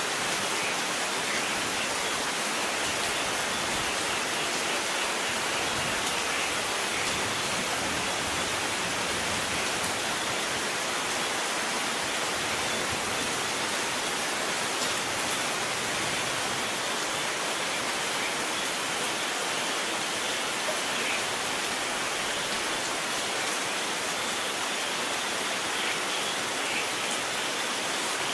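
Steady rain falling, an even continuous hiss with faint scattered drop ticks.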